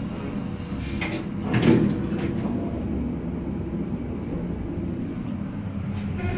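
Elevator car in operation: a steady low rumble, with a few knocks and one louder thump about a second and a half in.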